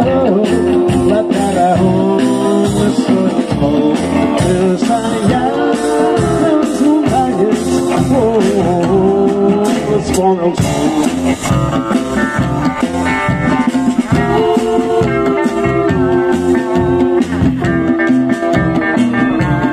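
Live band music with a steady beat: women's voices singing together over hollow-body electric guitar, saxophone, upright double bass and drums, in a rock-and-roll feel.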